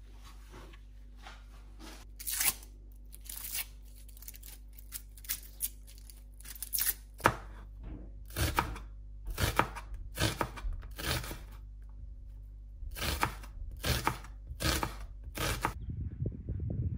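Kitchen knife cutting food on a cutting board: a run of separate, irregular strokes, sparse at first, then more frequent and louder from about halfway through. They stop just before the end.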